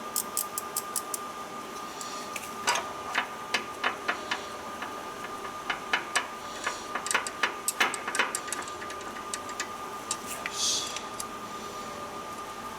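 Ratchet wrench clicking in short quick runs and scattered single clicks as the alternator's mounting bolts are run in, with a brief hiss about two thirds of the way through.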